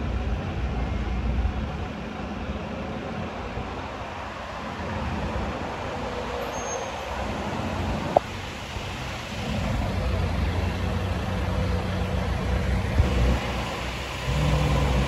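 Street traffic: vehicle engines running with a steady low rumble that swells and fades as vehicles move, and a single sharp click about eight seconds in.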